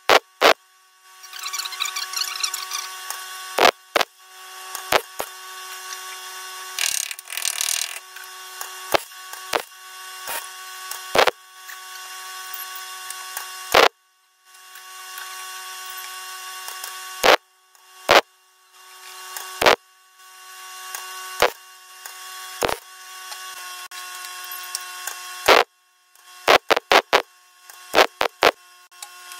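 MIG welder arc crackling and hissing as a panel is seam-welded onto thin car body steel, in runs of a few seconds broken by short pauses, each run starting with a sharp crack. Near the end comes a quick string of short tack bursts.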